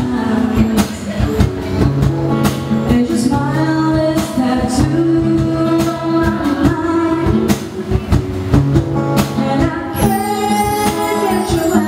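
Live acoustic band: a woman singing into a microphone over strummed acoustic guitar and a steady cajón beat, with a run on bar chimes about ten seconds in.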